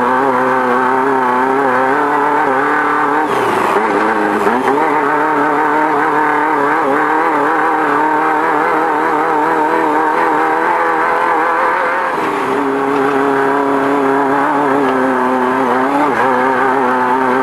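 Beetle-based off-road race car's engine running at high revs under throttle, its pitch wavering constantly. The revs dip sharply about three and a half seconds in and drop again near twelve seconds, then climb back.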